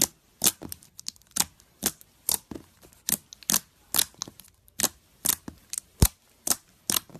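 Slime being squeezed and pressed by hand, giving crisp clicks and pops at a steady pace of about two a second.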